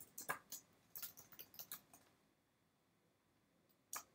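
Faint computer keyboard keystrokes for about two seconds, then a pause and a single click near the end as a button is pressed with the mouse.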